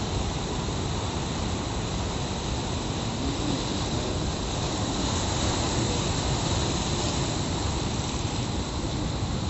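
Rough sea surf breaking over rocks and washing up the shore: a steady rushing noise with a deep rumble, swelling slightly about halfway through.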